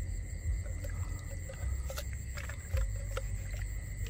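Water sloshing around someone wading, with small clicks and taps from handling fishing line, hook and a bait jar. A steady high-pitched whine runs underneath.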